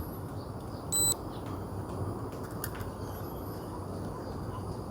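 A single short, high electronic beep about a second in, from the SJRC F11S drone set during its compass calibration, over steady low background noise.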